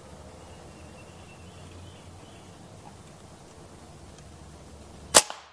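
Faint background noise, then about five seconds in a single sharp shot from a .25 caliber Air Venturi Avenger PCP air rifle firing at a squirrel; the sound cuts off abruptly right after.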